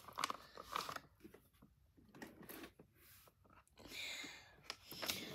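Crinkly plastic cookie bag rustling as it is handled and a cookie is taken out, in a few short spells, the longest about four seconds in.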